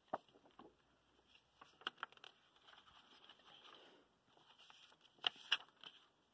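Faint rustling and flicking of paperback picture-book pages being turned, with a few sharper paper snaps, two close together about five seconds in.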